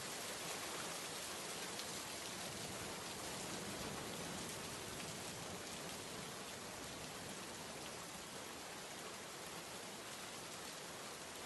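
Steady rain falling on wet pavement and puddles, an even hiss of many small drops.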